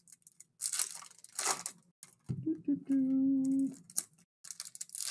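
Foil trading-card pack wrappers being torn open and crinkled, in short crackly bursts. A voice holds a brief hum in the middle.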